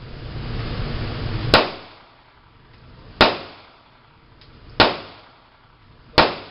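Semi-automatic handgun fired four times at a slow, steady pace, about one and a half seconds apart, each shot sharp and followed by a short echo.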